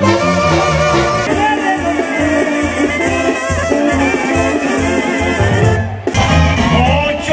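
Banda music, with sousaphone, brass and drums playing a lively Latin dance rhythm. The music breaks off briefly about six seconds in and picks up again.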